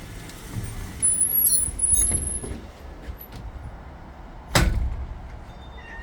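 A door being opened, with a high squeal lasting about a second and a half, then a single sharp knock about four and a half seconds in.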